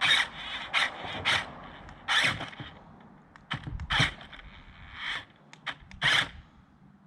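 JJRC Q137 8x8 skid-steer RC vehicle trying to climb a step: its small electric drive motors whine, with repeated short scrapes and knocks as the wheels claw at the edge. The whine breaks off briefly a little before halfway and then resumes.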